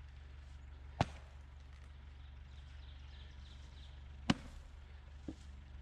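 Firewood being worked: two sharp wooden strikes about three seconds apart, then a lighter knock about a second later, over a steady low hum.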